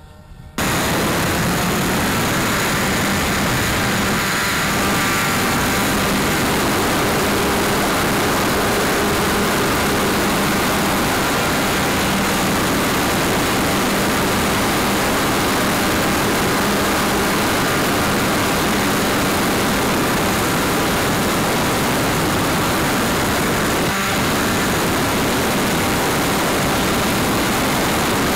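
Hangar 9 Alpha 60 RC model airplane's motor and propeller running steadily in flight, heard from a camera mounted on the plane, mixed with loud wind rush. It starts abruptly about half a second in.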